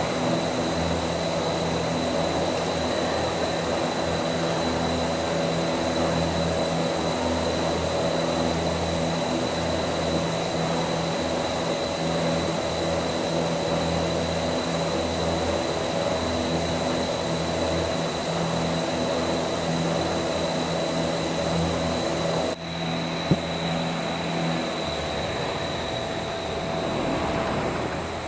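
Large rotating car-wash brushes spinning on their electric motors: a steady motor hum with the whirring rush of the bristles. A little over three quarters of the way through there is an abrupt break and a single click, then the motor hum stops and the whirring eases off as the brushes slow down.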